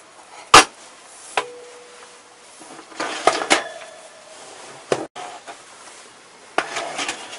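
A glazed clay pot and a metal oven rack knocking and clattering as the pot goes back into the oven. Several separate knocks and scrapes, the loudest about half a second in, some leaving a short metallic ring.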